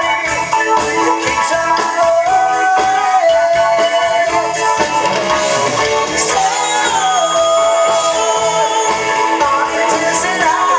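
Live rock band playing: a male lead singer sings over electric guitar and a drum kit.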